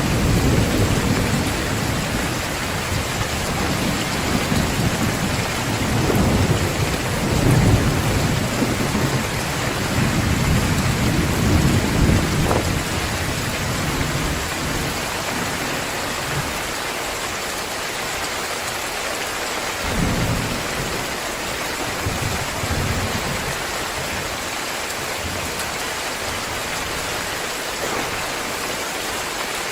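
Heavy rain pouring steadily, with rolling thunder rumbling through the first half that dies away after about sixteen seconds, and a brief low rumble again about twenty seconds in.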